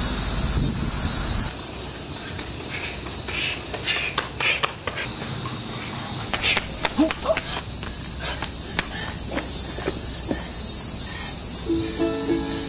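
Cicadas singing: a steady high buzz, joined about six seconds in by a steady high whine. Wind buffets the microphone for the first second or so, and scattered light taps and clicks come through the middle. Near the end a ukulele starts playing.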